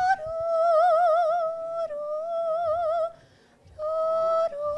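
A woman's voice singing long, high wordless notes with a wide vibrato, a mermaid's siren song, broken by a short pause about three seconds in.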